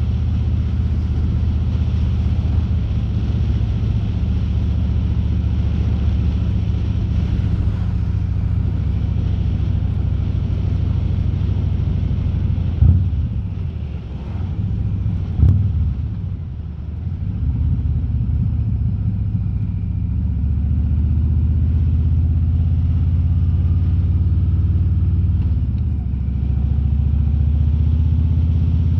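Harley-Davidson Road King's V-twin engine running steadily under way, picked up by a mic inside the rider's helmet. About halfway through the engine note eases off for a few seconds, with two short knocks, then picks back up.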